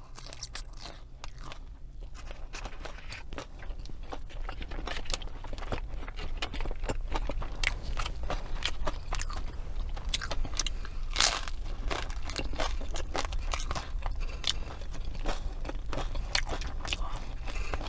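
Close-miked chewing of crunchy fast food: a dense run of crisp crunches and mouth clicks, with one louder crunch about eleven seconds in.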